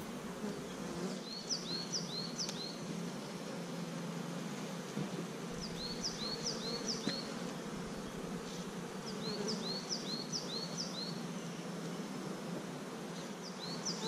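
Honeybees humming steadily around an open hive, with a small bird chirping short runs of about four high notes, four times over.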